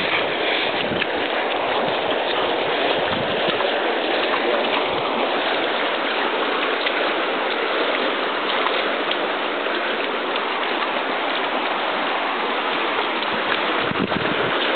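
Shallow mountain river rushing over rocks, a steady, even rush of water.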